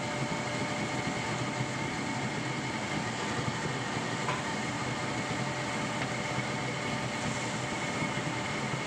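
Sardines in a thick tomato-chilli sauce bubbling and sizzling in a wok at a full boil: a steady hiss with dense crackling.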